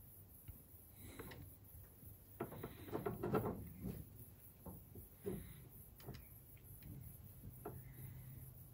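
Faint handling noises: scattered light rustles and small knocks as a hand works an inspection camera's flexible cable into the engine's spark plug hole, busiest about two and a half to three and a half seconds in. A faint low hum sets in near the end.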